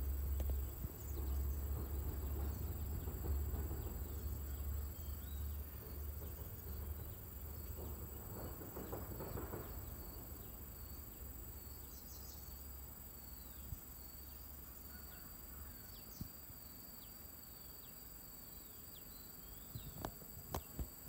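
Outdoor ambience of insects singing: a steady, high-pitched, thin tone runs throughout. A low rumble on the microphone fades out after about ten seconds, and a few sharp clicks come near the end.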